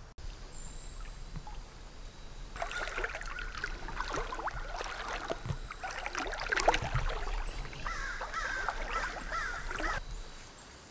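Someone wading through a rain-swollen river, with water splashing and sloshing around the legs at each step, starting about two and a half seconds in. The river is deeper than it looked.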